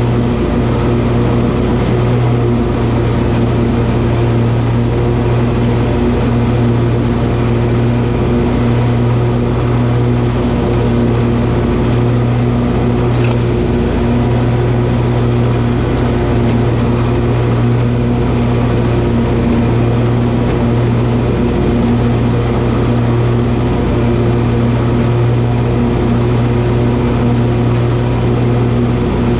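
Toro zero-turn mower running steadily at a constant engine pitch while mowing grass, with one brief tick about halfway through.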